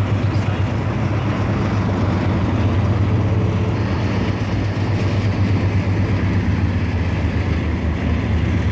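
A steady low rumble with an even rushing noise over it: a car travelling at speed, its road and wind noise heard from on board.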